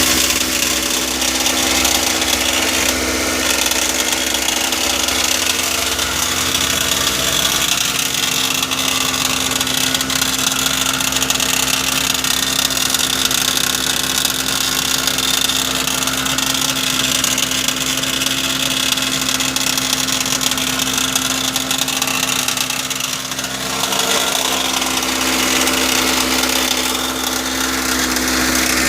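Toyota Matrix running with a steady mechanical whirring noise, a constant hum over a loud hiss, dipping briefly about three quarters of the way through. It is the unexplained noise that a new starter did not cure; the dealer had blamed a starter staying engaged after start-up.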